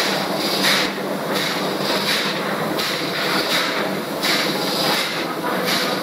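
Ship's machinery running steadily: a constant low hum under a loud rushing hiss whose upper range swells and fades every second or so.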